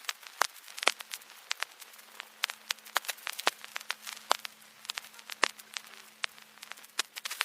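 Vinyl record surface noise: irregular crackles and sharp pops over a faint hiss, with a low hum underneath.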